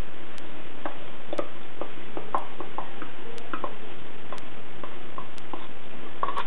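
Wooden spoon knocking and scraping in a metal pressure-cooker pot as chopped cilantro is tipped in and stirred, a scatter of short irregular clacks over a steady hiss. A sharp, even tick sounds about once a second.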